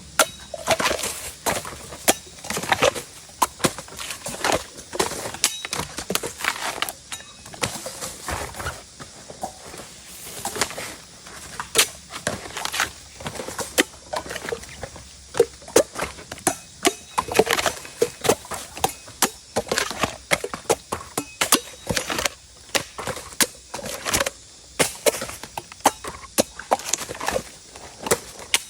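Bamboo shoots being cut with a blade: a long run of crisp chops and cracks, a few each second, irregular in spacing and strength.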